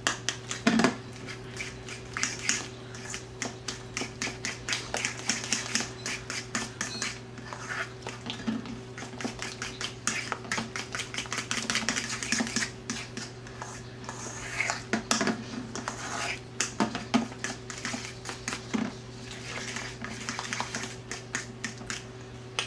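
Metal fork clinking and scraping against a stainless steel mixing bowl in quick, irregular strokes as it mashes and stirs egg yolks with mayonnaise into a creamy deviled-egg filling.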